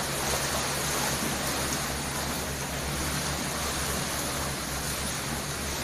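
Steady rushing and washing of river water, the wake of a passing boat surging against a flooded riverside house, with a low steady hum underneath.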